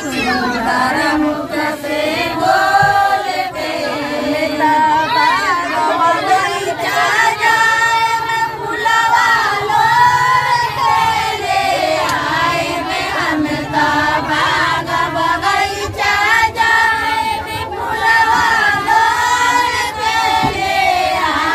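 A group of women singing a devotional song together, with held, wavering notes in a continuous chorus.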